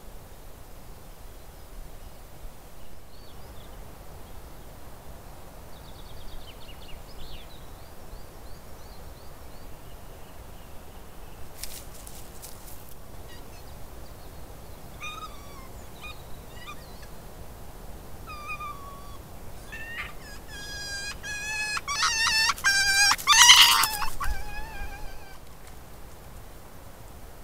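An animal calling: a few faint falling chirps early on, then from about halfway through a series of short pitched calls that comes faster and louder, building to a loud, rapid chatter of notes before stopping near the end.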